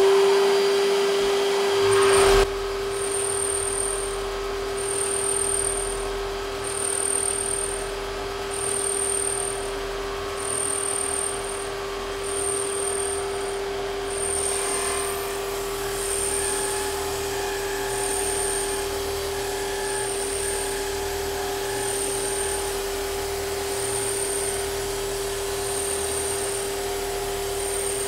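Drum sander thicknesser running with a steady whine while an ash bow laminate clamped to a tapered sledge is fed slowly through to sand in its taper, with a vacuum cleaner running as dust extraction. The sound changes sharply and drops a little about two seconds in, then stays steady.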